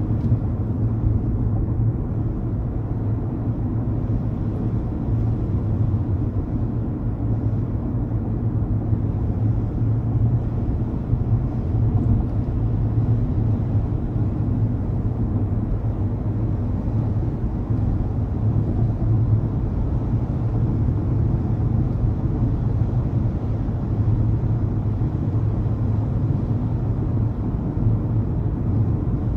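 Steady low rumble of a car driving along a highway, tyre and engine noise.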